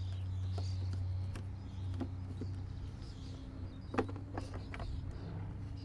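Small plastic clicks and light knocks as a Torx screwdriver undoes the screws of a MAN truck's rear tail lamp and the red plastic lamp lens is pulled off, the loudest click about four seconds in. A steady low hum runs underneath.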